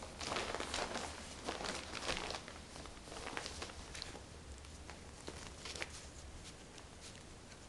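Puppies scuffling and rustling about on bedding, with many quick scratchy clicks, busiest in the first couple of seconds and fainter afterwards.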